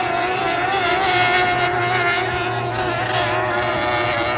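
Racing powerboat engines running flat out as the boats pass, a steady high whine with slight wavers in pitch.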